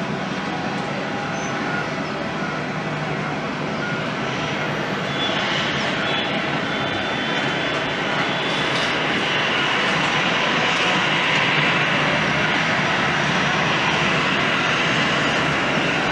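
Jet engine noise from an Airbus A350-900's Rolls-Royce Trent XWB turbofans: a steady rush that grows gradually louder, with a higher-pitched band building from about five seconds in.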